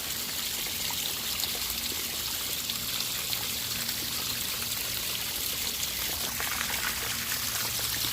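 Small waterfall: water splashing and trickling in a steady rushing hiss.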